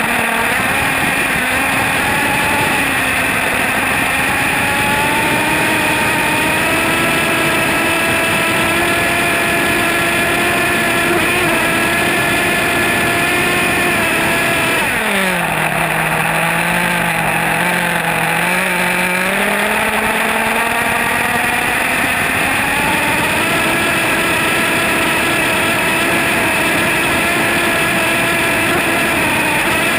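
HPI Savage X SS nitro RC monster truck's two-stroke glow engine running at high revs, heard close up from on board the truck. About halfway through the revs drop sharply for a few seconds, then climb back up and hold; near the end they fall away again.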